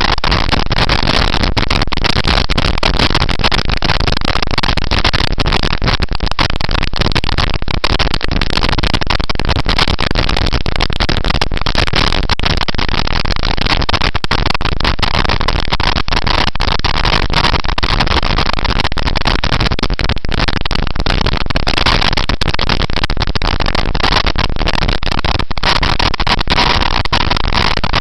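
Wind rush and buffeting over the microphone of a camera on a motorcycle ridden at speed: a loud, steady rush with constant crackling buffets.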